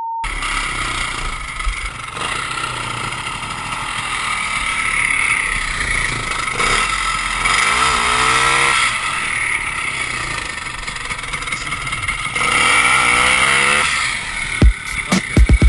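Vintage Ski-Doo snowmobile's two-stroke engine running, revving up and back down twice, once around the middle and again near the end, with the sled bogged in deep snow.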